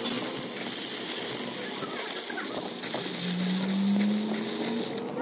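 Stick welding arc crackling and sizzling steadily while welding the steel tube of a truck's cracked rear axle housing; the arc cuts off near the end. A low hum rises slowly in pitch under it in the second half.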